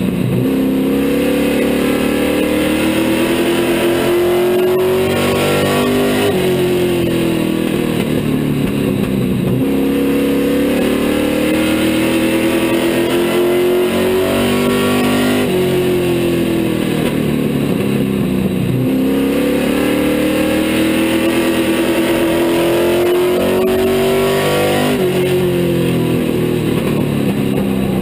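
Street stock race car's engine heard from inside its cockpit at racing speed, its pitch climbing steadily for several seconds and then falling off, about three times as the car accelerates and lifts around the short oval.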